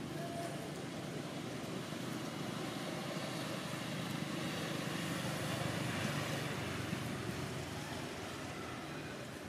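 Steady outdoor background rumble, like distant road traffic. It swells a little midway and eases off near the end, with no clear monkey calls standing out.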